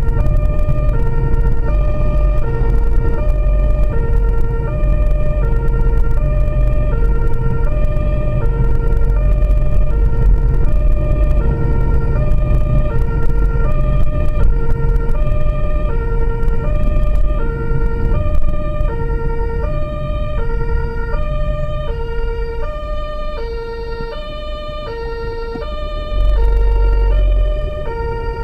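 German two-tone emergency siren (Martinshorn) on the vehicle itself, heard from inside the cab, switching back and forth between two tones about every two-thirds of a second. Underneath is low engine and road rumble, which swells louder briefly near the end.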